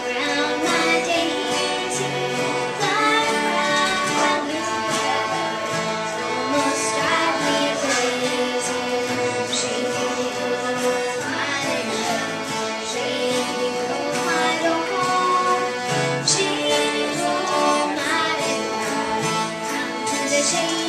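A string band of several fiddles and acoustic guitars playing a bluegrass tune together: bowed fiddle melody over strummed guitar chords, steady and continuous.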